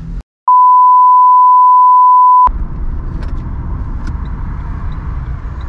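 A loud, steady single-pitch beep, edited in and lasting about two seconds, stops abruptly. Then comes the steady low rumble of a car running, heard from inside the car.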